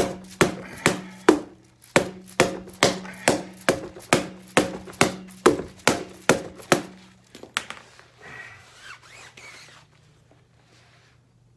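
Rubber hammer striking an inflated motorcycle front tire in a quick, even run of knocks, a little over two a second, that stops about seven seconds in. It is knocking the tire's bead, which is still tight in one spot, so that it seats evenly on the rim.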